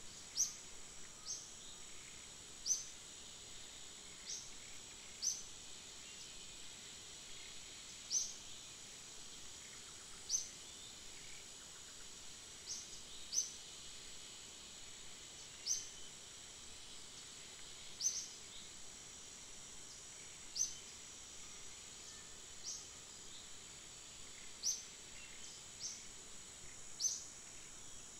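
Outdoor natural ambience: a steady high-pitched insect drone, with short, sharp high chirps repeating every second or two.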